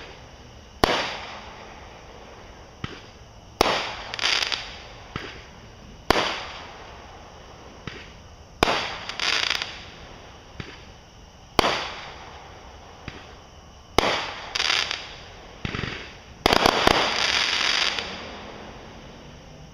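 Fireworks going off: a sharp bang every two to three seconds, each followed by a short burst of crackling, with a longer spell of crackling a little after sixteen seconds in.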